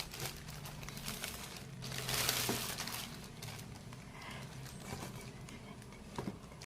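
Packaging crinkling and rustling as it is handled during an unboxing, with a louder rustle about two seconds in and a few light clicks.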